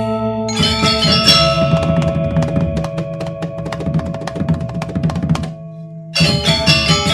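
Background music with drums and percussion over held tones; the percussion drops out briefly near the end and comes back in.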